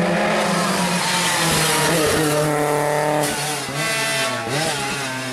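Rally car engine at high revs with tyre noise. About three seconds in it eases off, then revs up and down in short blips.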